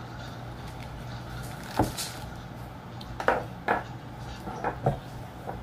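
A handful of short knocks and taps as wax is pressed and worked onto a foam mannequin head with a spatula, over a steady low hum.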